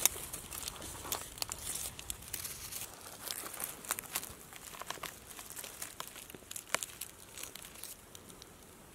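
Dry fallen leaves and twigs crackling and crinkling as a hand digs into the forest floor and pulls out a bolete mushroom. The crackles come thick at first, thin out, and stop near the end.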